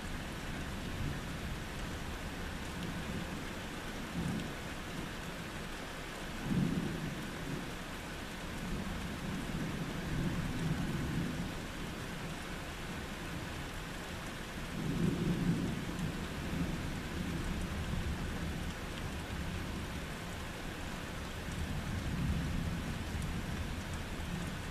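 Steady rain with rolling thunder: low rumbles swell up several times over the rain, loudest about six and a half seconds in and again around fifteen seconds.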